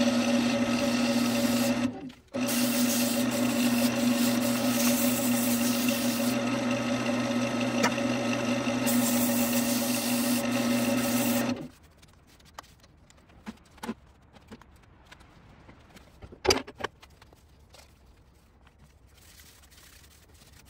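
Wood lathe motor running with a steady hum while sandpaper is held against a spinning redbud bud vase, dropping out briefly about two seconds in. About halfway through the lathe is off, leaving only faint handling taps and one sharper knock.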